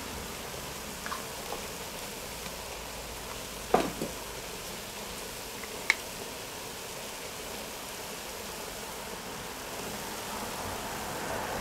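Food sizzling steadily in a cast-iron Dutch oven over the fire, with a few short knocks and clicks, the loudest about four seconds in.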